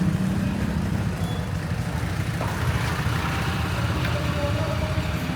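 Steady low rumble of a motor vehicle on the move, engine and road noise with no sharp events.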